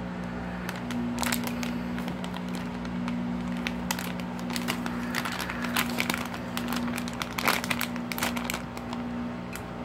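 Plastic squishy-toy packaging crinkling and crackling now and then as it is handled, over a steady low hum.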